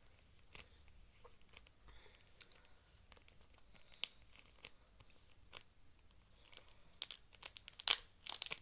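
Trading cards and their plastic packaging being handled: scattered small clicks and crinkles, busier and louder near the end.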